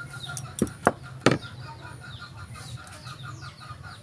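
Three sharp impact cracks close together about a second in, the last the loudest, over a background of chickens and small birds chirping.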